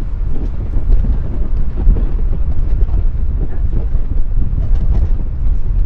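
Loud, uneven low rumble of wind buffeting the microphone in a moving car, mixed with the car's road noise.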